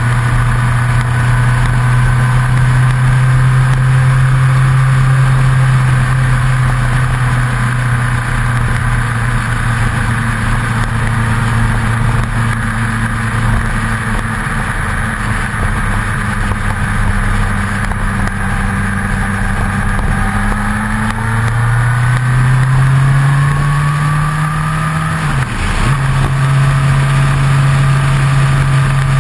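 Kawasaki motorcycle engine running at a steady cruise, with wind and road noise. About three quarters of the way through, the engine note rises as it accelerates, breaks briefly as it changes up a gear, then holds steady at a lower note.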